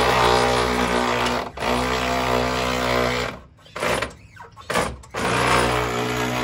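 A powered jack's motor running steadily as it lifts a car's rear control arm to compress the coilover spring. It dips briefly about a second and a half in and stops for nearly two seconds after about three seconds, with two short blips, then runs again.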